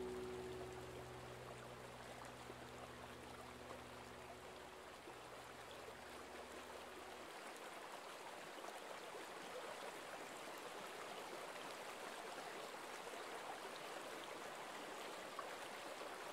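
Faint, steady rush of river water flowing over a rippled, shallow stretch. A held chord of background music dies away during the first several seconds.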